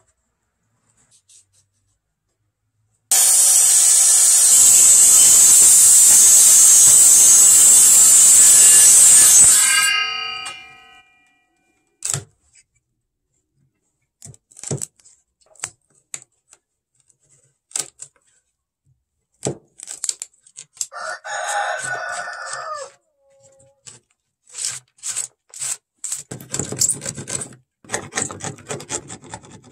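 A power tool runs steadily and loudly for about six seconds, then winds down. A steel chisel then works a groove in a wooden board, first in scattered sharp taps, then in dense scraping and chopping near the end. A rooster crows once in between.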